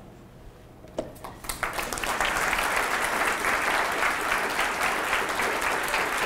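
Audience applauding: the clapping starts about a second and a half in, builds quickly and then holds steady.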